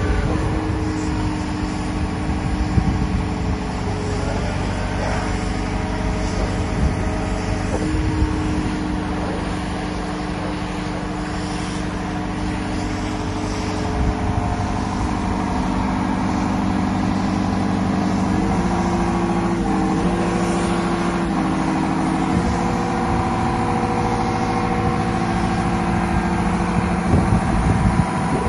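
Liebherr A 904 C Litronic wheeled excavator's diesel engine running steadily, its note stepping up and down a few times partway through.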